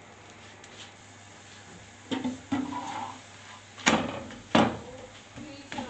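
A metal slotted spatula knocking and scraping against a frying pan while a paratha is turned and pressed: a few short sharp clatters that begin about two seconds in, the loudest two a little past halfway.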